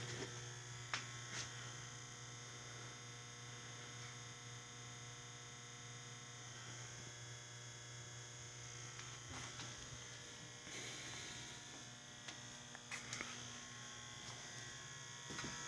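Faint steady electrical hum and buzz made of several steady tones, with a few light knocks now and then.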